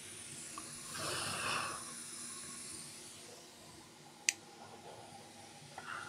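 Flux sizzling softly as a blade-tip soldering iron is drag-soldered along the pins of a QFP chip, with a louder sizzle about a second in. One sharp click comes a little after four seconds.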